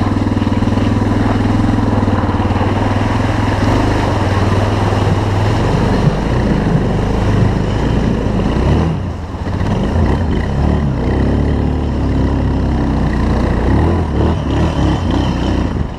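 Suzuki DR dual-sport motorcycle's single-cylinder engine running at a steady note for several seconds, then rising and falling with the throttle, with a brief dip about nine seconds in.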